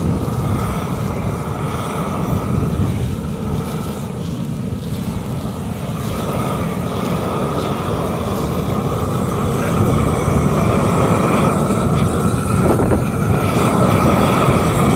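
A machine's engine running steadily, growing a little louder over the last few seconds, with a steady hum-like tone over a rough low rumble.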